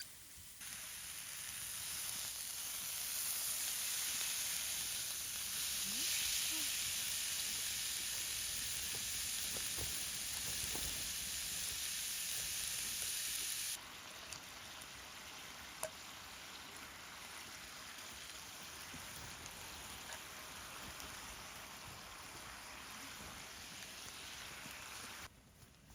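Food sizzling as it fries in a hot pan. The sizzle grows louder a few seconds in, drops suddenly to a quieter sizzle about 14 seconds in, and stops near the end.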